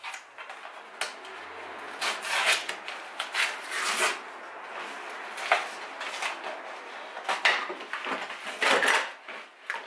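A kraft-paper mailer envelope being torn and pulled open by hand: irregular paper tearing and crinkling, with several louder rips along the way.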